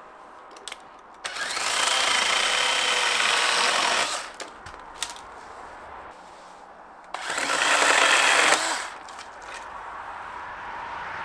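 Small cordless electric chainsaw making two cuts through small branches on the shelter frame. The first cut lasts about three seconds, starting about a second in; the second is shorter, near two-thirds of the way through. The motor starts and stops instantly with no idling between cuts.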